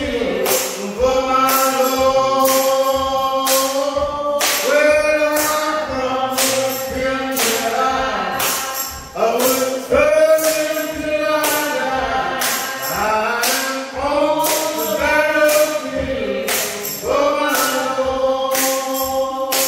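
Music: singing voices holding and gliding between notes over a steady beat of sharp, bright strikes about twice a second.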